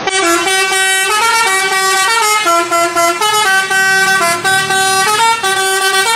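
A loud melody played in a horn-like tone: held notes stepping up and down every fraction of a second, several sounding at once, like a musical vehicle horn or sound effect for a city bus.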